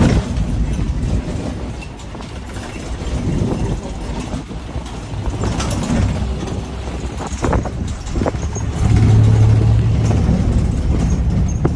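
A vehicle running, with a continuous low rumble of engine and road. A steady low engine hum comes in louder about nine seconds in.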